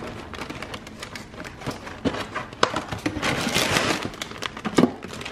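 Plastic bag and cardboard box crinkling and rustling as frozen bites are taken out by hand, with scattered clicks and a denser stretch of crinkling about three seconds in.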